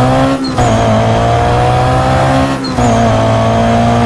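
Motor vehicle engine droning steadily at a constant pitch, cutting out briefly twice.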